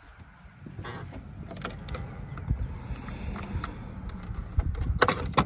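Handling noise from a phone carried against a jacket while walking: a low rubbing rumble with scattered light clicks and knocks, and a few sharper clicks near the end.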